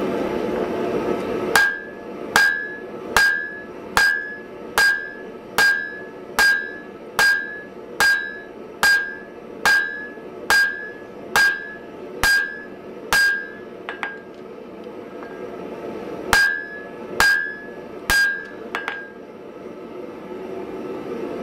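Hammer blows on a hot punch driving the eye through a glowing wrought-iron hammer body on the anvil, each blow with a bright metallic ring. About sixteen blows come at an even pace of a little over one a second, then a few light taps, a pause, and four more blows.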